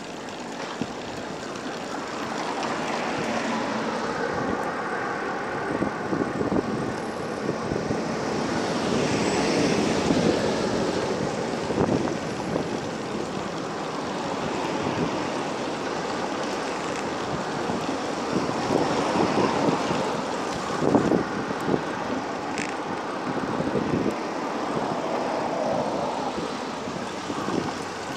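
Road traffic on a multi-lane road: a steady rush of tyres and engines that swells as vehicles pass.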